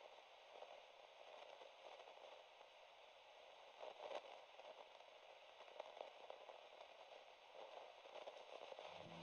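Near silence: a faint steady static hiss with a few soft crackles.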